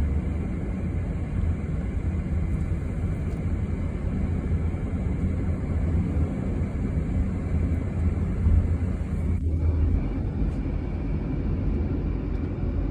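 Steady road noise inside a moving car's cabin: a low, even rumble of tyres and engine at cruising speed.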